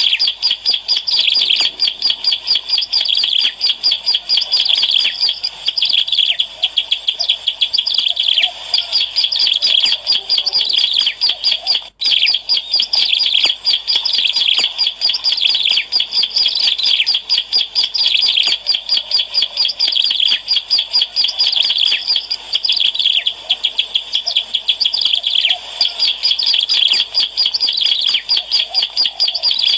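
Ciblek alang-alang, a prinia, singing a rapid, nearly unbroken run of high chirping notes, as used in a lure recording (suara pemikat) to call in birds. The song breaks off only once, briefly, near the middle.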